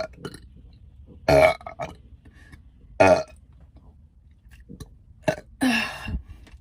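A woman burping deeply, about four burps a second or two apart, the last two close together near the end, brought up by the soda she has been drinking.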